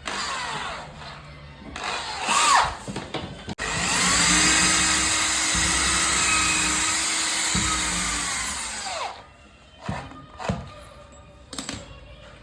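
Power drill driving screws into the hydraulic bed fitting: a short burst, then a long run of about five seconds whose whine rises as it spins up and falls as it winds down, then a few quick short bursts.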